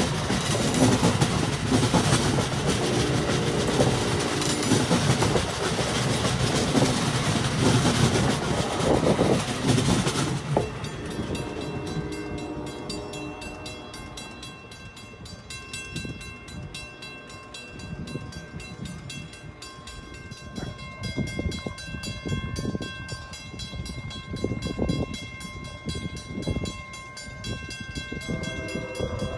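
Amtrak passenger train of Amfleet coaches rushing past at speed, a loud rush of steel wheels on rail with clickety-clack. About ten seconds in, the last car clears and the noise drops away sharply. Fainter steady high ringing tones with rapid ticking remain, along with some low rumbling.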